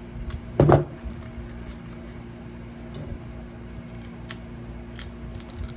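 Copper motor windings being pulled out of a refrigerator compressor, giving a few light, sharp metallic clicks over a steady electrical hum. A short loud thump comes just under a second in.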